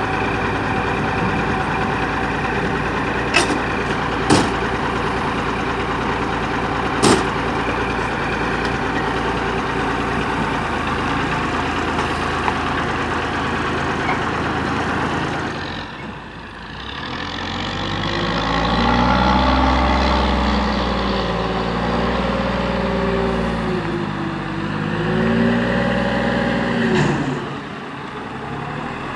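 Diesel engine of a 1986 Peterbilt 310 front-load garbage truck idling steadily, with three sharp knocks in the first several seconds. From about halfway on, the engine revs as the truck drives off, its pitch rising and falling several times before dropping away near the end.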